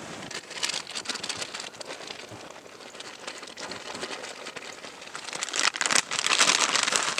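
Rustling and crinkling handling noise with many small crackles, growing much louder near the end.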